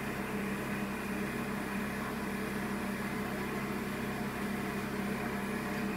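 Mazerustar planetary centrifugal mixer spinning a sealed mixing cup at 2000 rpm, a steady machine hum with a strong low tone.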